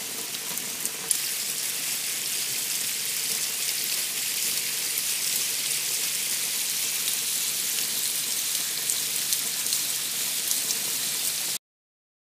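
Rainwater running and splashing down a copper rainchain, a steady hiss of falling water and rain. It cuts off suddenly near the end.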